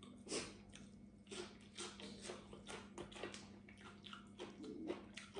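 Quiet chewing and small wet mouth clicks of a person eating, coming as faint irregular ticks, over a low steady hum.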